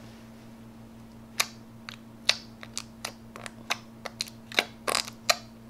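Fingers poking clear purple crystal slime in its small plastic pot, making a run of short, sharp, wet clicks and pops at uneven spacing, a few a second, from about a second and a half in. A faint steady hum lies underneath.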